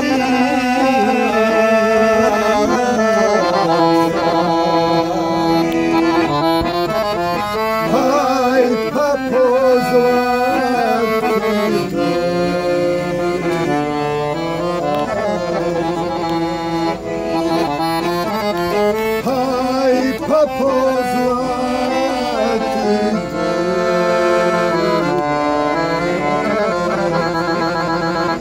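Piano accordion playing a tune: a moving melody over held chords and bass, with no break.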